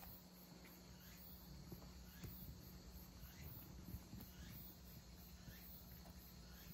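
Near silence: room tone with a steady low hum and a few faint ticks.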